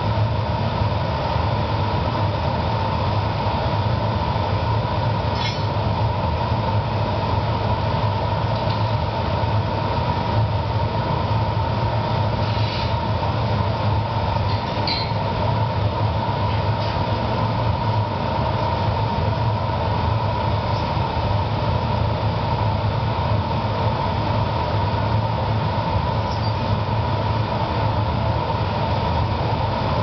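Steady rushing noise of a glassblowing studio's gas-fired furnace and glory hole burners, with a few faint clicks of metal tools.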